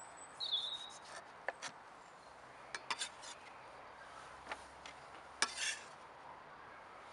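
Kitchen knife working on a wooden chopping board while dicing tomatoes: scattered light knocks of the blade on the wood and short rubbing scrapes as the diced tomato is pushed across the board.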